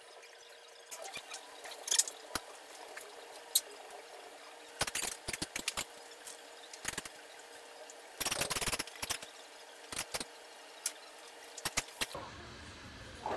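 A damp cotton dish towel being folded, twisted and pressed against a granite countertop: scattered rustles, rubs and sharp taps, with a longer stretch of rubbing about eight seconds in, over a faint steady hum.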